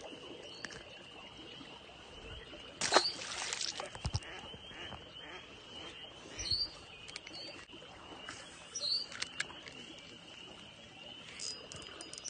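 A steady, high-pitched chorus of frogs calling. There is a sharp knock about three seconds in, with a few scattered clicks and rustles of handling.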